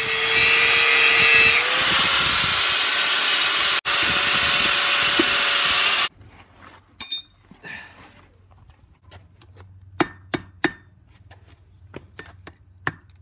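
Electric power tool running on steel for about six seconds, its motor pitch rising slightly a second or so in, then cutting off. Scattered light metal clinks and knocks follow.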